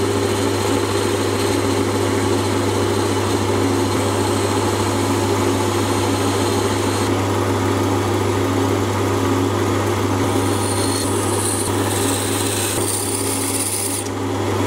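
Sieg C3 7x14 mini lathe running steadily, its spindle turning a pulley blank, with a constant hum from the motor and drive.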